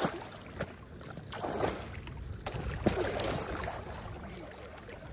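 Water sloshing around waders as someone wades in icy river shallows, with a few scattered sharp cracks and clinks of thin shore ice breaking underfoot.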